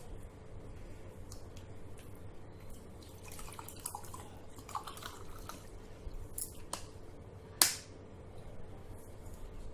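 Water being gulped and swallowed in quick mouthfuls, with small wet clicks, then one sharp click near the end.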